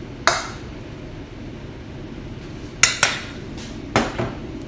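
Metal kitchen utensils clinking against a plate and the worktop: a single clink just after the start, then two quick pairs of clinks later on, over a low steady room hum.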